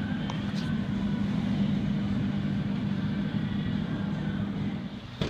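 Steady low hum of a supermarket refrigerated display case, its fans and compressor running.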